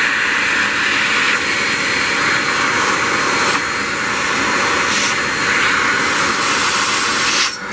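Hoover WindTunnel 3 Pro Pet upright vacuum running at full power: a loud, steady rush of motor and airflow, with a brief dip near the end.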